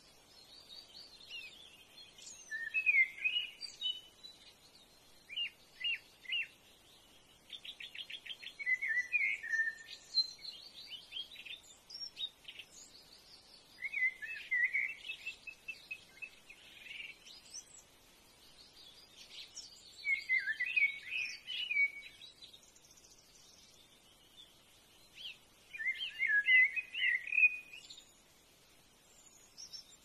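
Wild birds singing and calling: bursts of chirpy, warbling phrases every few seconds, with a rapid trill about eight seconds in.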